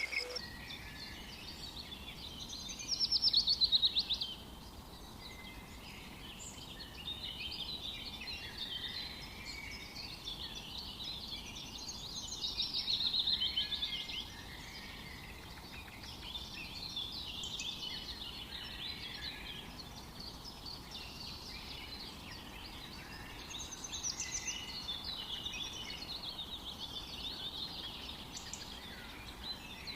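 Songbirds singing, a busy overlapping mix of chirps and trills, with louder trilled phrases about three seconds in and again around thirteen seconds.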